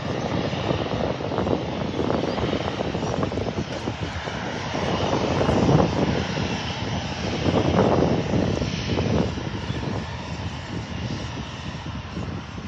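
Gusty wind buffeting the microphone, swelling loudest about six and eight seconds in, over the distant jet-engine noise of a Boeing 737-800 taxiing.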